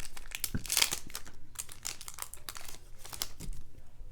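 Foil wrapper of a baseball trading-card pack crinkling as it is opened, with many quick crackles and rustles.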